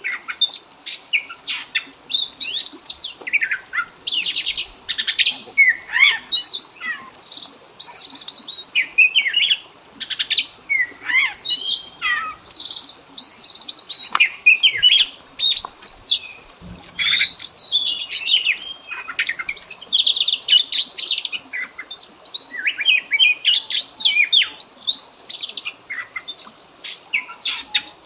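Oriental magpie-robin (kacer) singing continuously: a rapid string of varied whistles, rising and falling sweeps, and buzzy trills with only brief gaps, the full 'isian' style in which the song is packed with mimicked calls of other birds.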